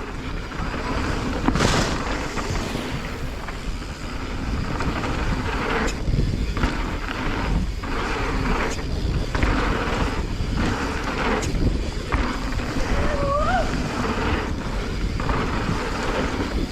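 Wind rushing over the microphone and mountain bike tyres rolling over a dusty, rutted dirt trail at speed, with repeated knocks and rattles of the bike over bumps. A short rising squeal about thirteen seconds in.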